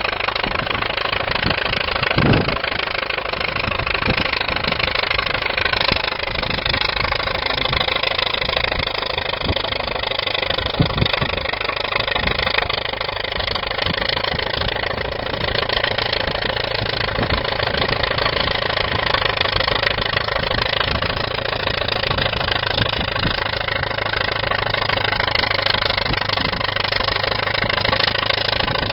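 1931 Allis-Chalmers crawler bulldozer's engine running steadily, with a brief louder knock about two seconds in and another about eleven seconds in.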